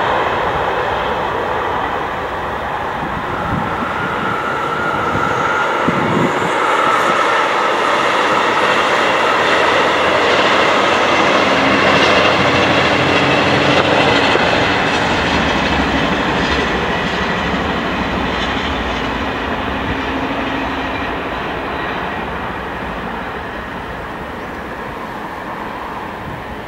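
Locomotive-hauled passenger train passing, a continuous rushing wheel-on-rail noise. It swells to its loudest about halfway through, then slowly fades as the train moves away.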